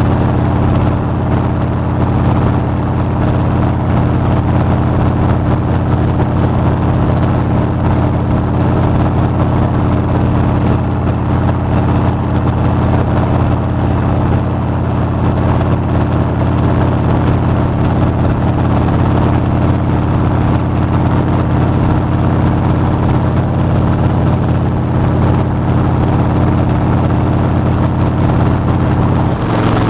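Motorcycle engine running steadily at cruising speed, a constant drone over wind and road noise.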